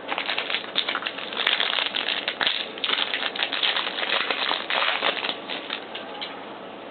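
Trading card pack wrapper crinkling and crackling as it is torn open and handled, a dense run of rustles that dies away about six seconds in.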